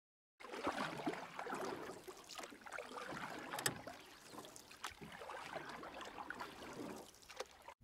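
Water splashing and sloshing against a boat's hull in a choppy, irregular way. It starts a moment in and cuts off abruptly at the end.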